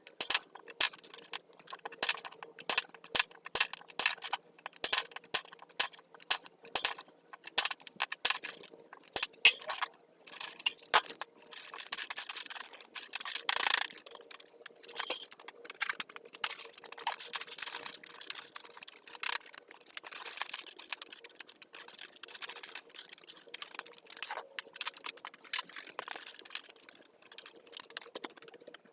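Small firewood being worked by hand: a quick run of sharp wooden knocks and clicks, then from about twelve seconds in longer stretches of rasping and scraping.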